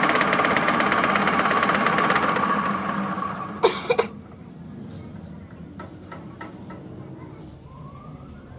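Metal lathe running with a drill bit cutting into a small metal part held in a four-jaw chuck, then spinning down over a couple of seconds. A few sharp metal clacks come about four seconds in, followed by quieter light clicks.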